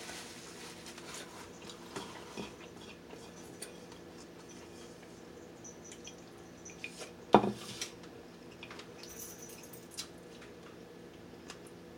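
Quiet clicks and taps of cutlery and dishes during a meal, with one louder sudden clatter about seven seconds in.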